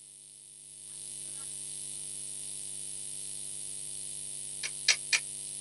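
Steady electrical mains hum with its stacked overtones. Near the end come three sharp, short metallic clicks from a bunch of keys tapped or jingled in hand.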